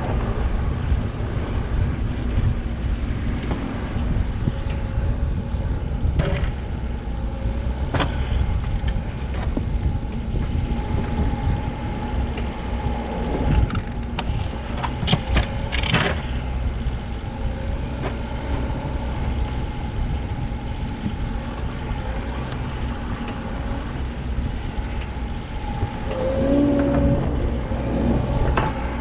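Backhoe engine running steadily, with several sharp metal clanks in the middle and a brief higher whine near the end.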